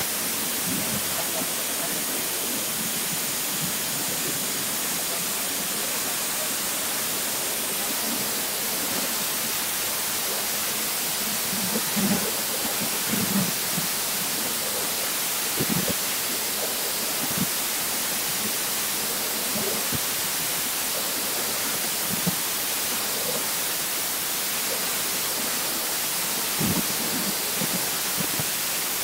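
Water-jet cutting machine's high-pressure jet hissing, a steady loud hiss, with a few faint short low sounds about halfway through and again near the end.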